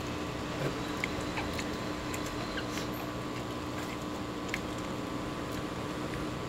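Eating sounds from a whole roast pig: fingers picking at the crisp skin and meat, and chewing, heard as scattered small clicks and crackles over a steady hum.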